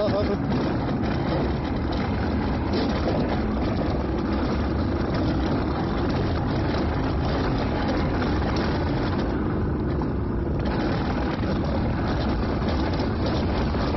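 An alpine coaster sled running fast down its metal track: a steady rumble of its wheels on the rail, mixed with wind rushing over the phone's microphone.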